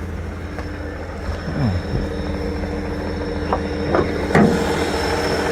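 Holden Commodore VT's 3.8-litre V6 idling steadily, with a few short sharp clicks about three and a half to four and a half seconds in.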